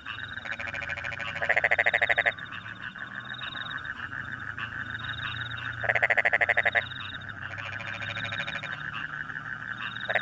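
Frogs calling: a loud, rapid pulsed croaking trill about a second long, heard twice about four seconds apart and starting again at the very end, over a steady chorus of frogs and crickets with short repeated chirps.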